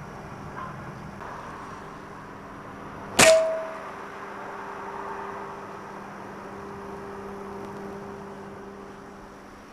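A single air rifle shot about three seconds in: one sharp crack with a brief ring after it, over a steady low hum.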